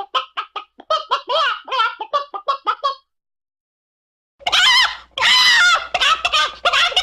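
Chicken clucking in quick runs of short, arched calls, about four or five a second. The calls stop about three seconds in, then start again louder and denser after a second or so of silence, over a low hum.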